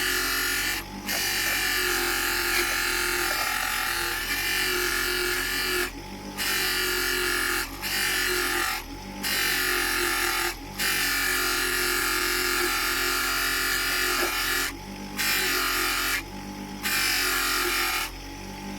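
Bench polishing wheel running, with a steady hiss each time the brass-coated oil can is pressed against the buffing wheel. The hiss breaks off briefly about seven times as the piece is lifted away, while the motor's low hum carries on.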